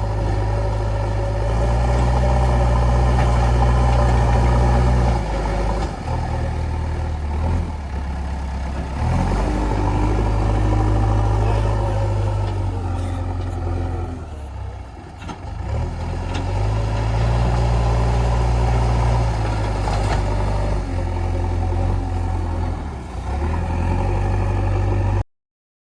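JCB 3DX backhoe loader's diesel engine working, its revs rising for several seconds under load and then dropping back, three times over. The sound cuts off abruptly near the end.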